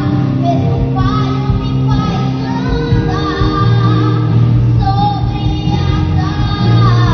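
A boy singing a Christian worship song into a microphone, his voice amplified over steady instrumental accompaniment.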